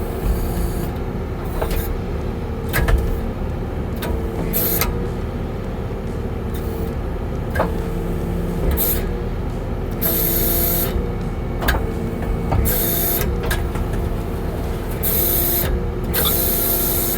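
Kubota skid steer's diesel engine running steadily under hydraulic load while the tree spade's blades are driven into the ground, with a few sharp clicks or knocks and repeated bursts of hiss in the second half.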